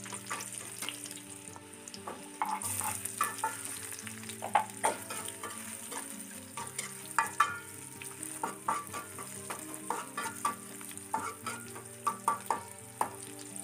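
Chopped shallots, garlic and red chilli sizzling in hot oil in a wok while a metal spatula stirs them. The spatula scrapes and taps against the wok in irregular strokes.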